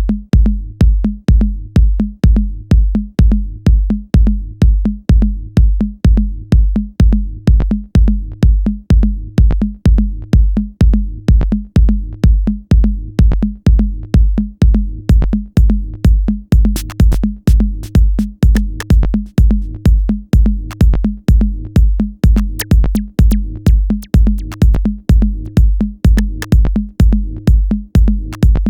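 Electronic background music with a drum-machine beat: a deep kick about twice a second over a bass line, with crisp hi-hat ticks joining about halfway through.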